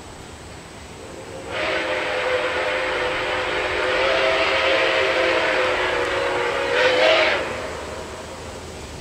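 Chime steam whistle of Nickel Plate Road 765, a 2-8-4 Berkshire steam locomotive, sounding one long blast of about six seconds as it approaches. The blast is a chord of several notes over a steam hiss, and it swells just before it cuts off.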